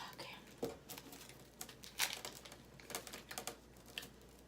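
Irregular light clicks and crinkles from a packet of Goya pineapple wafers being handled and opened.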